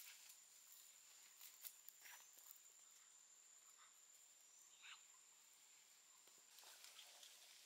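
Near silence: faint outdoor ambience with a thin, steady high-pitched tone that stops about six and a half seconds in, and a few faint scattered ticks.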